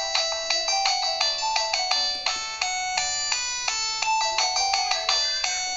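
Polyphonic MIDI ringtone playing from a Modottel WTE-300 mobile phone's speaker: a fast run of bright synthesized notes in the phone's 16-voice MIDI sound.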